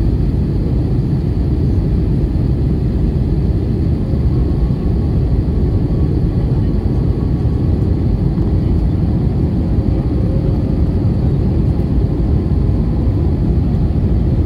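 Steady cabin noise inside an Airbus A320-family jet airliner in flight: an even, low rush of airflow and engine noise with no change.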